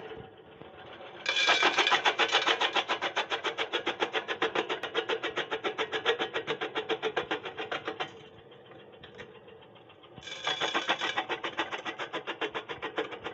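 Motor-driven glass-crushing machine running and pounding broken glass toward powder: a steady motor hum under fast, even knocking, about nine beats a second. The knocking falls away for about two seconds past the middle, then resumes.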